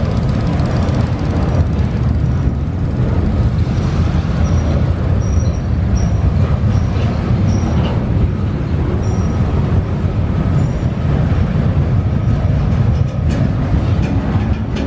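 Diesel-hauled freight train rolling along with a steady, loud low rumble, with several brief high-pitched squeals in the middle.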